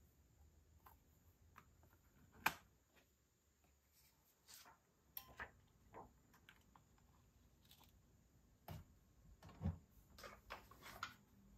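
Plastic handling sounds from a perler-bead pegboard and tape on a cutting mat: scattered light clicks and taps, with a sharp knock about two and a half seconds in and a duller knock near the end.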